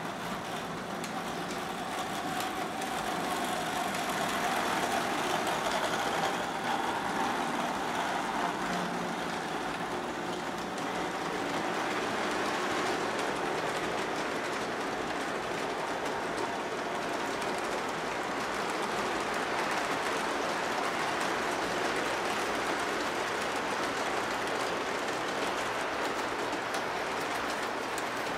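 O gauge three-rail model freight train rolling past: a steady rumble of metal wheels on the track. A humming tone fades away over the first several seconds, about when the locomotives go by.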